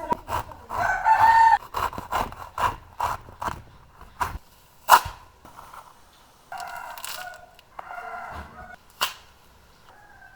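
A rooster crowing several times. Between the crows there is a run of sharp knocks, about three a second, and two louder single clicks later on.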